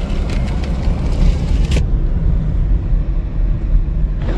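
Car driving on a snowy road, heard from inside the cabin: a steady low rumble of engine and road noise, with a few light ticks and a sharper click in the first two seconds.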